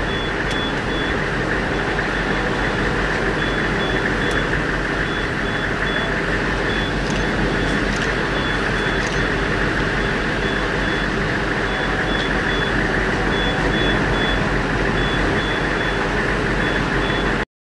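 Heavy vehicle or machinery running steadily, with a high-pitched reversing alarm beeping in runs with short gaps. The sound cuts off suddenly near the end.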